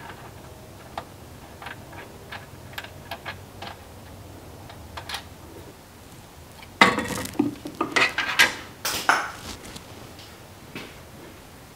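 Small metallic clicks as a bolt is handled in an aluminium extrusion rail. About seven seconds in, black cloth tape is pulled off the roll in several loud rasping strokes and snipped with scissors.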